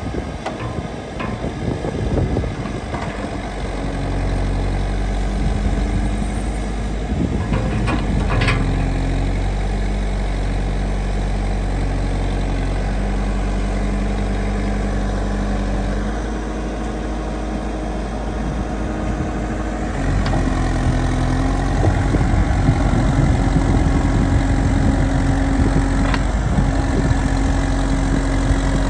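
JCB 4CX backhoe loader's diesel engine starting up, then idling steadily, with a clunk about eight seconds in and the engine running louder from about twenty seconds in.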